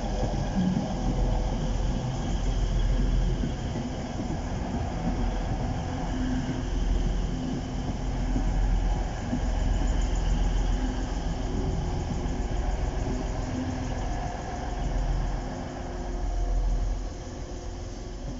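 Diesel passenger train running past a level crossing, a heavy engine rumble with steady low tones that swells and fades. The rumble drops away near the end.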